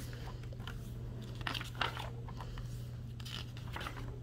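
Pages of a paperback picture book being turned by hand: several short paper rustles and swishes.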